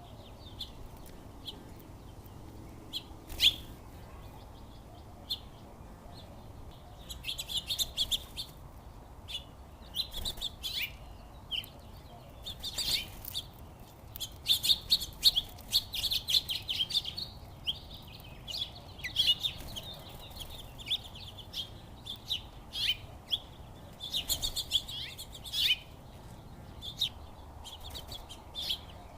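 Small songbirds at a backyard feeder, sparrows and finches, chirping in quick clusters of short high calls that come thickest in the middle, over a faint, steady low background noise.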